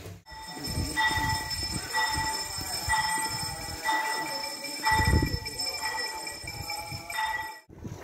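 A metal bell ringing about once a second, each stroke a clear two-note ring, over a steady high-pitched tone and irregular low rumbling, with a heavier low thump about five seconds in. It cuts off suddenly near the end.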